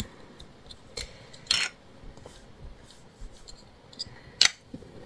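Light handling noises of crafting supplies on a desk: a soft click about a second in, a short scuff just after, and a sharper click near the end.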